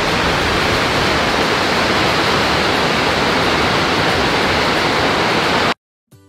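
Steady rushing roar of a 70-foot waterfall, water pouring down a rock face, cutting off suddenly near the end.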